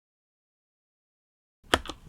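Near the end, after silence, the first keystrokes on a mechanical keyboard with unlubricated Kailh Box Dark Yellow switches: a loud sharp clack and a quieter one right after it.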